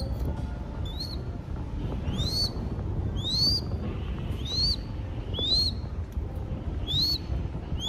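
Downy crested goshawk chick calling over and over, a thin high whistle that rises then drops back, about one call a second: a nestling begging for food.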